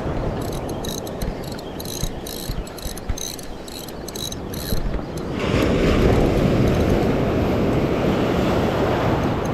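Daiwa Exist spinning reel being cranked during a jig retrieve, giving a rhythm of sharp mechanical ticks about three times a second for the first half. A little past halfway, shallow surf washes in around the angler and the rush of water grows louder.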